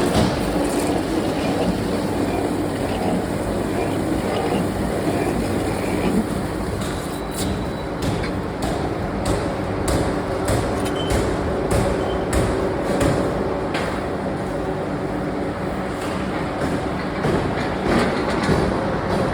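Factory machinery running with a steady hum, broken by frequent irregular metallic knocks and clanks.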